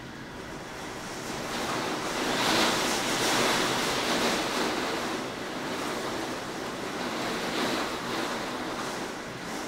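Wind and heavy rain of a severe derecho thunderstorm, a steady rushing noise that swells in a gust about two seconds in and slowly eases off again.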